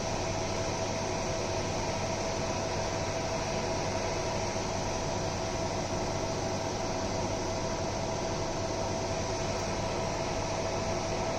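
Fiber laser engraving machine running: steady fan-like hum and hiss with a constant tone above it, unchanging throughout.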